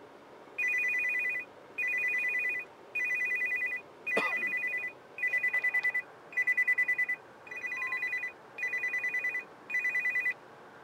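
Phone ringtone: nine electronic trills of two high tones, each under a second long and about one a second, some with a fast flutter. The ringing stops shortly before the end.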